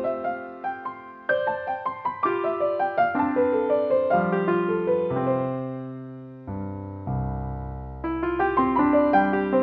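Gentle solo piano background music, playing flowing broken-chord notes. About two-thirds of the way through it settles on a few low held notes, then the quicker notes pick up again.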